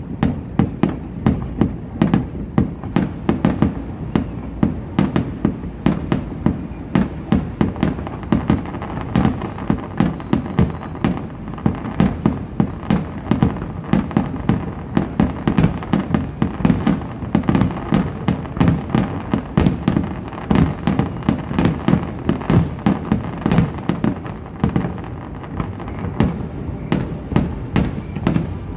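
Aerial firework shells bursting in rapid succession: a dense run of sharp bangs, two or three a second, over a steady low rumble.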